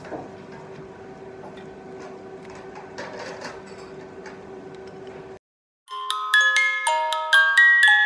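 Low restaurant background with a steady hum and a few faint clicks, which cuts off after about five seconds. After a short gap, a short jingle of quick, bright, ringing bell-like notes starts and plays on loudly.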